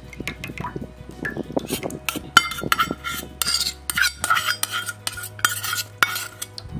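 Steel utensils clinking and scraping against a stainless steel bowl as mutton gravy is poured onto beaten eggs and onions. The sharp clinks come thicker and louder from about two seconds in.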